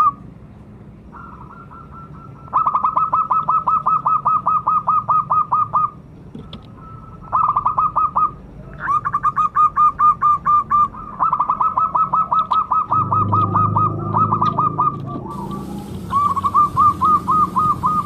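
Zebra doves (perkutut) calling in their staccato way: rapid trains of short cooing notes, several a second, in about five bouts of one to four seconds with short pauses between.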